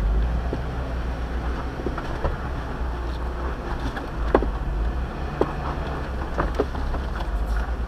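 Jeep crawling up a rocky trail at low speed: the engine runs low and steady, with scattered sharp clicks and knocks.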